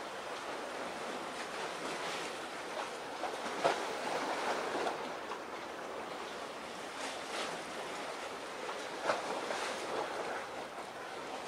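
Sea waves washing, a steady rushing noise with a few brief louder splashes, one about four seconds in and another about nine seconds in.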